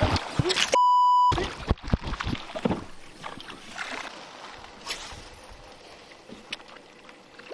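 Splashing at the water surface where a propeller topwater frog lure is being worked, cut off by a short electronic beep at one steady pitch about a second in. After the beep comes the quieter wash of water and wind around a small boat on open water, with a few light clicks.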